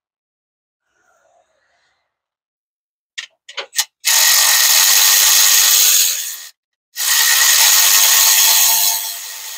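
Cordless power tool spinning bolts out at the alternator: a few short trigger blips about three seconds in, then two steady runs of about two and a half seconds each with a brief pause between them.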